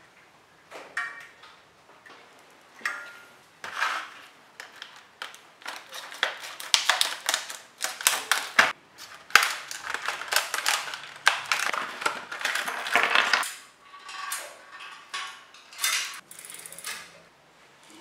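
Scissors cutting and crackling open a stiff plastic blister pack holding a new 9-speed bicycle chain, with the chain's metal links clinking as it is handled. A dense run of crackles and clinks fills the middle, then quieter, sparser clinks near the end.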